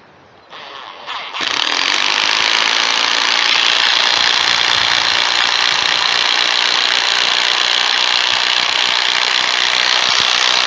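Ryobi P235A 18V 1/4-inch impact driver hammering steadily as it drives a 6-inch lag bolt into a section of telephone pole. A couple of short bursts come first, then the tool runs without a break from about a second and a half in.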